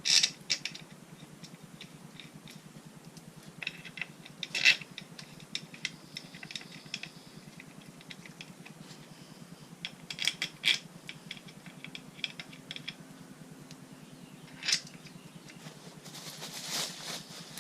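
Small metal bolts clinking and clicking as they are handled and set by hand into a motorcycle engine's stator side cover, in scattered short clusters.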